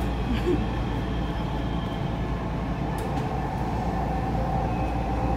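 Dubai Metro train running, heard from inside the carriage: a steady low rumble with a faint steady whine over it. There are a couple of light clicks about three seconds in.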